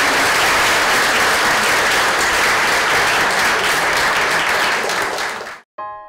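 Audience applauding steadily, cut off abruptly near the end, when a few synthesizer music tones begin.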